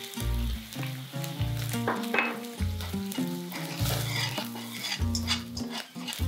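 Crumbled salted egg yolk and water bamboo sizzling in hot oil in a nonstick wok, with a utensil stirring through the pan. Background music with a bass line plays underneath.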